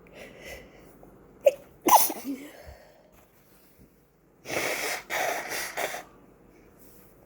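A person sneezes loudly about two seconds in, just after a short sharp catch of breath, the sneeze carrying a brief falling voiced tone. A few seconds later comes a longer, noisy rush of breath through the nose and mouth in two parts.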